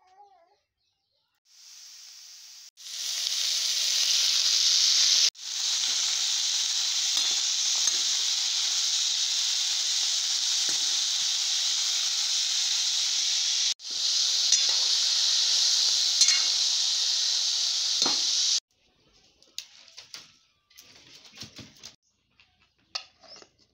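Chopped onions and tomatoes frying in a hot metal pan: a loud, steady sizzle with a few sudden short breaks, while a metal spoon stirs them. The sizzle stops abruptly about 18 seconds in, leaving a few faint knocks and clinks.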